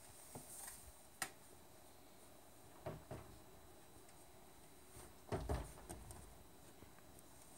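Quiet room tone broken by a handful of soft clicks and knocks, such as handling noise. The loudest is a short cluster with a dull thump about five and a half seconds in.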